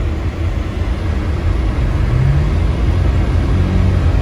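Steady low rumble of a Subaru car's engine and tyres heard from inside the cabin while driving on snow-covered road, with a faint engine note that rises a little about two seconds in.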